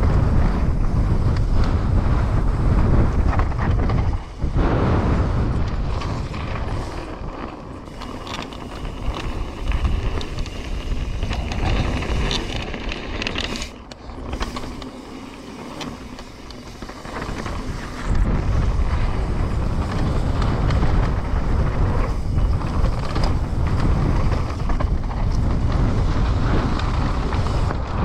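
Mountain bike descending a rough trail: wind buffeting the microphone over tyre rumble and frame rattle. It eases off from about six seconds in, with a faint high whine, then swells back up about eighteen seconds in.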